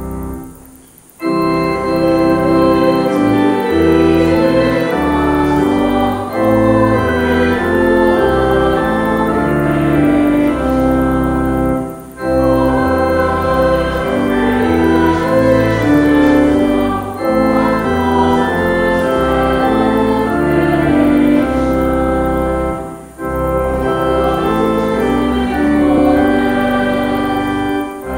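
Organ playing a hymn tune in sustained chords, phrase by phrase, with short breaks between phrases about 12 and 23 seconds in.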